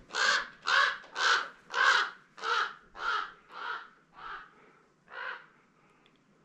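A crow-family bird cawing: nine caws about two a second, fading toward the end, with one last caw after a short pause.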